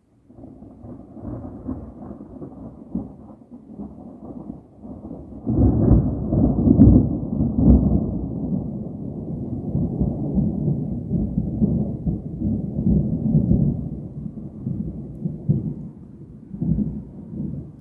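Rolling thunder from a nearby thunderstorm. It starts as a low rumble, grows much louder about five seconds in, then rolls on in waves, with one more swell near the end.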